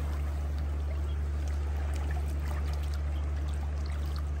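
Sea water washing and trickling among shore rocks, with a steady low hum underneath.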